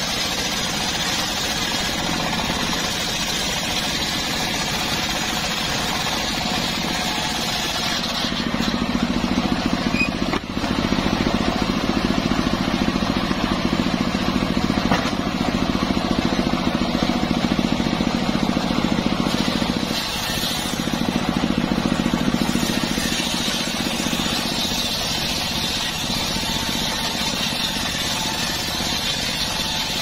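Engine-driven homemade circular sawmill running steadily, its large blade ripping lengthwise through a wooden beam. The sound grows louder and deeper from about eight seconds in until about twenty-three seconds in, with a brief drop near ten seconds and again near twenty.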